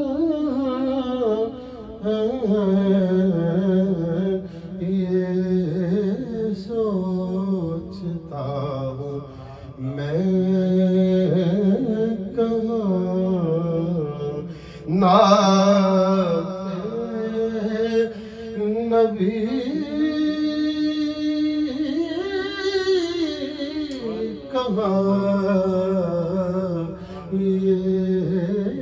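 A man singing an Urdu naat, a devotional poem in praise of the Prophet, without accompaniment, in slow melodic phrases with long held and ornamented notes, pausing briefly between lines.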